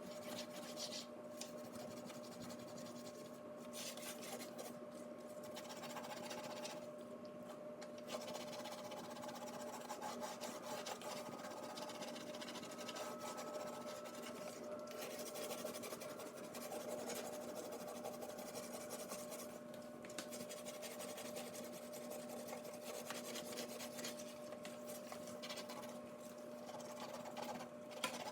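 A wet dishwasher tablet scrubbed against greasy oven-door glass: a continuous scratchy rubbing with a few short pauses, over a steady low hum.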